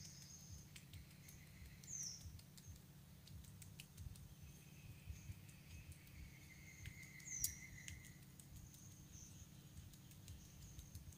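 Quiet ambience with faint birdsong: a few short, falling, high chirps and one longer, falling whistle over a low steady rumble. Scattered soft clicks come from a knife chopping moss bait on a palm.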